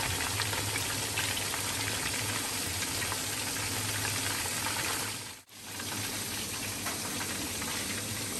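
Spice-coated fish pieces deep-frying in hot oil, a steady sizzle. It drops out briefly about five and a half seconds in, then resumes.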